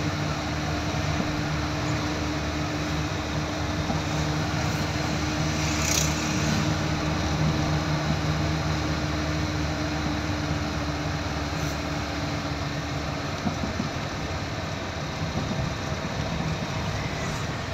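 Cabin noise of a car driving along a town street: a steady engine hum under road and tyre noise. The hum's steady tone drops away about thirteen seconds in.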